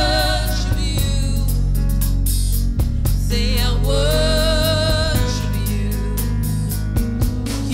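Live gospel worship music: a woman singing long held notes with vibrato into a microphone over keyboard, bass and drums with steady cymbal ticks.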